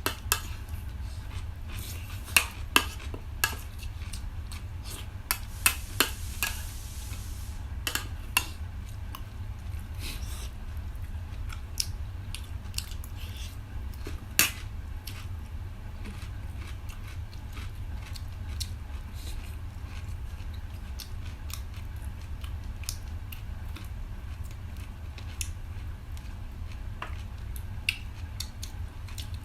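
Eating sounds at a meal: sharp clinks of utensils and hands on plates and bowls, with chewing, the clinks busiest in the first eight seconds and sparser after. A steady low hum runs underneath.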